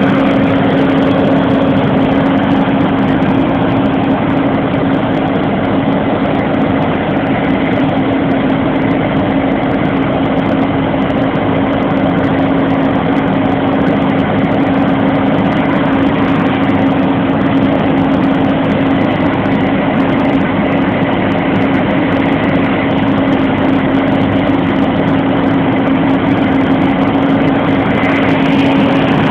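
Fendt 714 tractor's diesel engine running close up at a steady speed, with an even hum that neither revs up nor drops.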